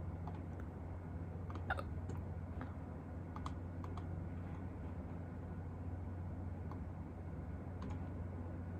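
A few small, scattered clicks over a steady low hum, the sharpest about two seconds in.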